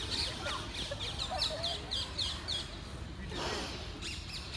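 Birds chirping in the trees: scattered short, high chirps, with a quick run of repeated chirps, several a second, from about a second and a half in.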